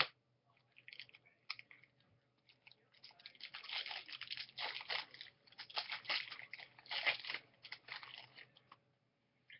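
Foil wrapper of a 2013 Topps Chrome baseball card pack being torn open and crinkled: a few scattered crackles, then a dense run of crinkling for several seconds that stops shortly before the end.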